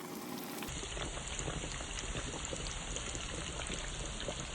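Flour-dredged chicken frying in hot oil in a cast iron skillet: a steady sizzle of dense fine crackling, starting about a second in.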